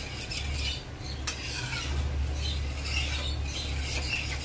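Metal ladle stirring watery semolina halwa in a kadhai, scraping the bottom of the pan with short squeaky scrapes and irregular light clicks. A steady low hum runs underneath.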